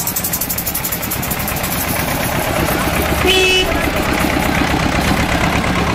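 Tractor engine running as a tractor pulling a trailer passes close by, with a short horn toot about three seconds in.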